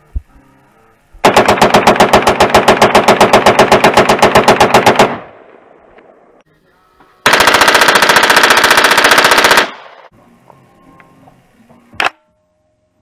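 CZ Scorpion Evo semi-automatic 9mm being bump-fired: two long strings of rapid shots at about ten a second, close to machine-gun speed, the first about four seconds long and the second about two. A single sharp crack comes near the end.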